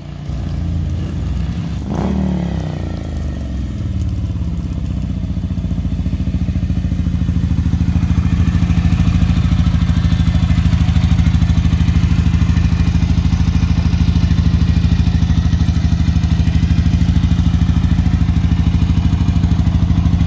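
Freshly rebuilt 1981 Ducati 900 Mike Hailwood Replica's 864 cc desmo V-twin engine, with a rise and fall in pitch about two seconds in, then settling into a steady idle.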